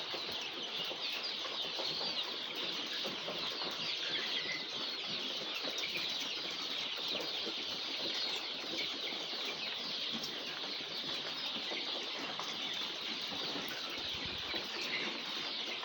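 A large flock of six-week-old chickens making a steady, dense chorus of high cheeping and chirping.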